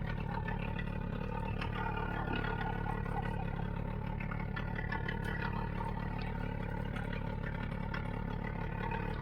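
A boat engine running steadily at an even pitch, with a few faint light clicks over it.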